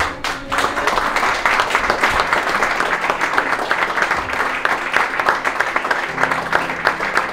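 Wedding guests applauding: dense clapping that starts about half a second in and carries on steadily.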